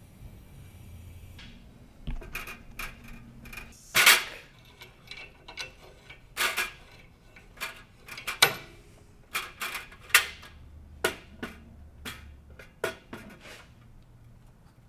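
Metal clinks and knocks of hand tools and engine parts being handled, scattered and irregular, starting about two seconds in; the loudest knocks come about four and eight and a half seconds in.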